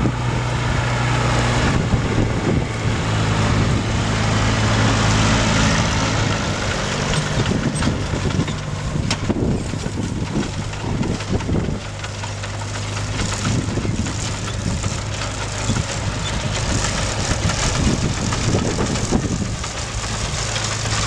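Farm tractor's diesel engine running steadily as it pulls a trailed harvesting machine through a standing cereal crop. The harvester's mechanism rattles and clatters over the engine, most busily in the middle.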